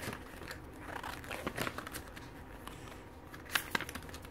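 Paper pages of a CD booklet being flipped and handled by hand: soft, scattered rustles, with two sharper ticks close together about three and a half seconds in.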